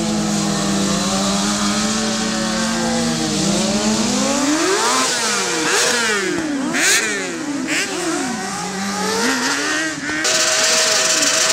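Sport motorcycle engines at a stunt show: one held at steady revs at first, then revved up and down in quick repeated blips from about four seconds in, with two short hissing bursts. Near the end an engine holds high, steady revs over a loud hiss, a rear tyre spinning in a burnout.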